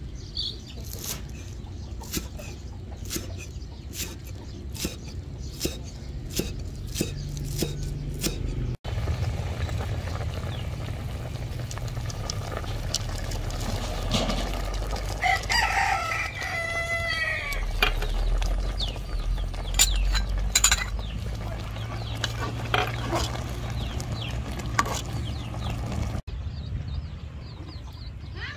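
Knife chopping on a wooden chopping block, a steady run of sharp cuts. About halfway through, a rooster crows once, over a low steady rumble.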